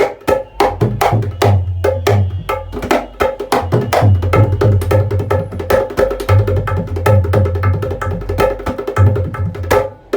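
A handmade Indian hand drum played in a quick rhythm to check its tone: sharp ringing strokes on the high head over repeated low booming notes from the bass head.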